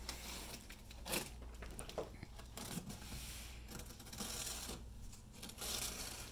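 Packing tape on a cardboard shipping box being cut and torn open with a small blade: several separate scratchy, tearing strokes, with a sharp knock about a second in.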